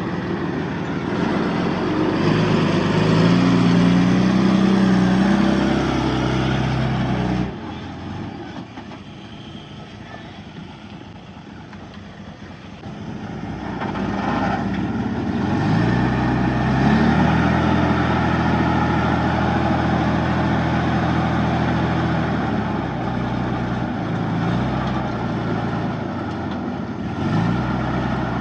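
Diesel engine of a Komatsu D31-P bulldozer at work, revving up and easing off. It drops abruptly about seven seconds in, stays lower for several seconds, then climbs back to a strong, steady run.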